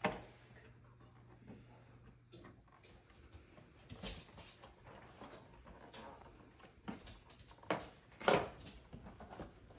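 Quiet room with scattered rustles, taps and knocks from handling a boxed toy and gift packaging, loudest as a pair of knocks near the end; a low hum runs under the first couple of seconds.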